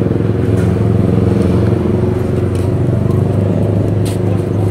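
A vehicle engine idling steadily close by, with a few short sharp clicks about halfway through and near the end.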